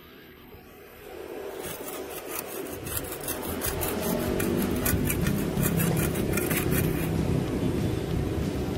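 A metal hand trowel scraping moss off stony ground in quick, repeated scraping strokes. It starts about a second in and grows louder.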